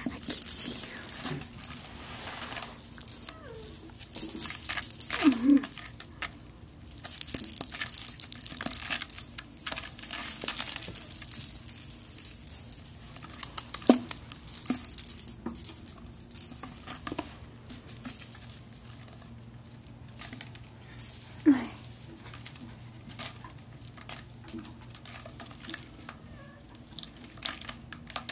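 Kittens' claws scratching and scrabbling on a sisal-rope scratching post and carpet, heard as uneven bursts of scratchy rustling with scattered clicks.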